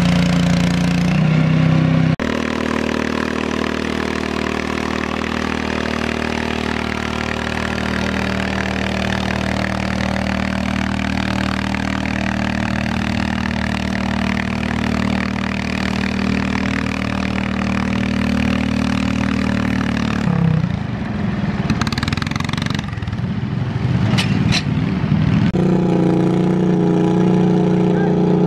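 Garden tractor engine running steadily at high speed under load as it pulls a weight-transfer sled. A few seconds before the end the sound turns rough and irregular, then the engine runs steadily again.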